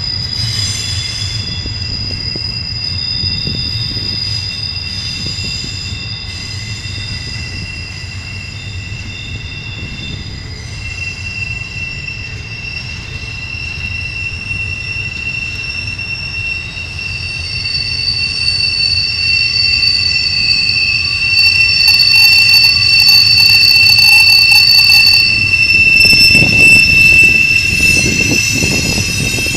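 Wheel flanges of a double-stack intermodal train's container well cars squealing as they roll around a sharp curve: several steady high-pitched squeals over the low rumble of the wheels. The squeal grows louder about two-thirds of the way through.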